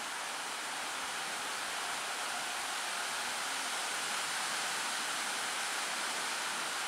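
Heavy rain falling, a steady even hiss that grows slightly louder.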